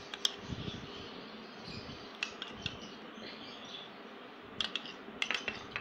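Metal spoon clinking against a glass bowl while chutney is spooned out: a few sharp, light clinks, one near the start, three about two seconds in and a quick cluster near the end, over a steady faint hum.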